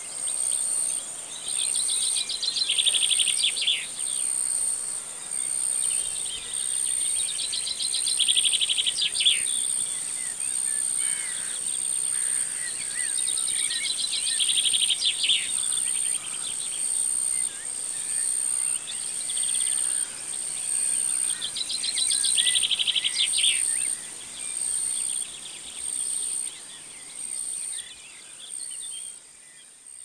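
Tropical forest insects: a steady, rapidly pulsing high-pitched buzz throughout, with a louder buzzing trill about every six to seven seconds, four times. Scattered bird chirps come between the trills, and the sound fades out near the end.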